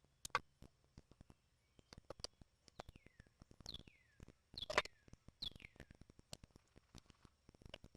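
Faint clicks and light knocks of small tools and parts being handled on a chainsaw at a workbench, with a few short chirps falling in pitch in between; the loudest knocks come about half a second in and near the middle.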